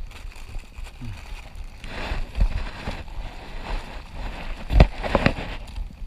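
Scattered knocks, cracks and rustling over a low rumble of wind on the microphone, with a cluster of sharper knocks about five seconds in.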